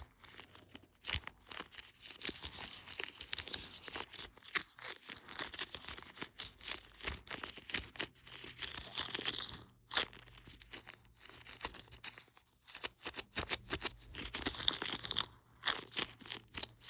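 Close-up crinkling and crackling of a homemade squishy being squeezed and handled, in irregular runs with a few short pauses.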